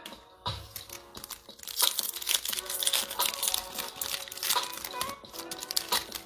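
Foil wrapper of a basketball trading-card pack crinkling and tearing as it is ripped open by hand, busiest from about a second and a half in until near the end. Background music plays underneath.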